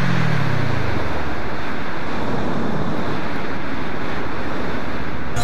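Loud, steady wind rush over a helmet-mounted camera's microphone on a moving Kawasaki ER-6n. Over the first second or so the bike's parallel-twin engine note falls as the revs drop, then it is buried under the wind.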